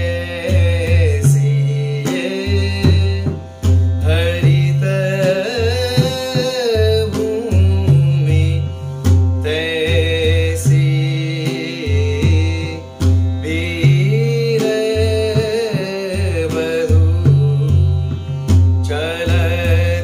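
Male voice singing Haveli sangeet, the raga-based devotional temple music of the Pushtimarg tradition, in a bending, ornamented melody over sustained accompanying tones. A drum keeps a repeating rhythm of deep bass strokes beneath the voice.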